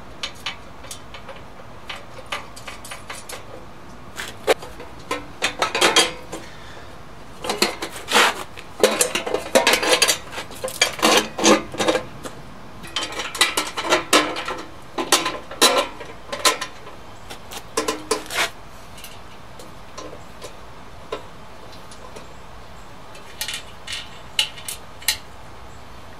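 Steel mixer parts and long bolts clinking and knocking against each other as the motor mount, spacer and cover are fitted onto a small cement mixer's frame. The clinks come irregularly in clusters, busiest through the middle, with a last short run near the end.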